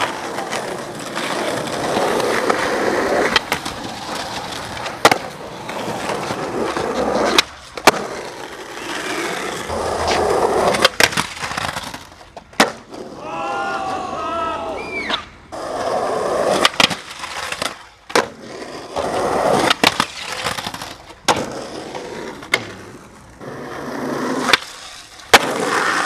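Skateboard wheels rolling over rough asphalt, broken again and again by sharp clacks of the board popping and landing.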